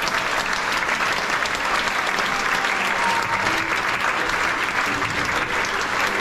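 A large theatre audience applauding steadily, a dense, unbroken clapping.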